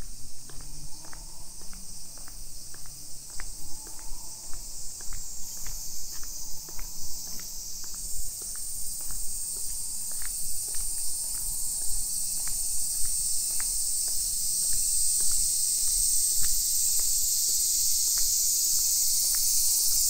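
A chorus of cicadas: a steady high-pitched hiss that grows louder about halfway through. Footsteps on a brick-paved path tap along at about two steps a second.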